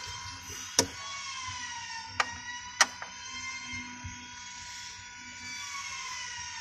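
Socket wrench on a long extension working a spark plug loose, giving three sharp metal clicks, over a steady high whine that slowly wavers in pitch.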